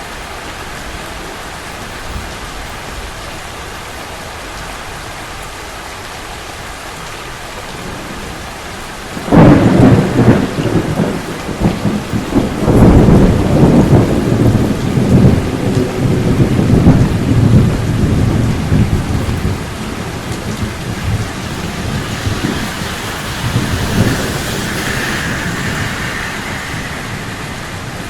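Steady rain falling, then about nine seconds in a sudden thunderclap that cracks and rumbles on for around ten seconds before fading back under the rain.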